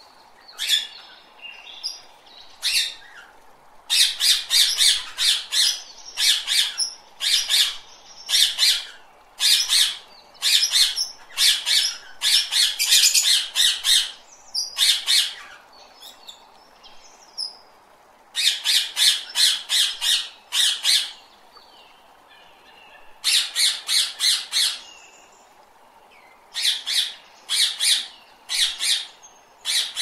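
Parrot squawking: runs of short, harsh squawks, several a second, in bursts separated by brief pauses.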